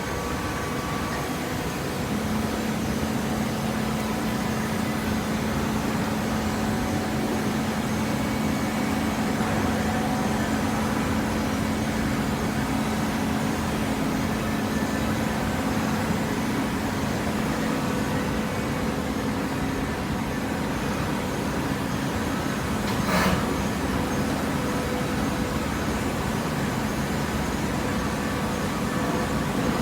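Hydraulic cardboard baler running: a steady machine hum with a constant tone, and one brief clank about 23 seconds in.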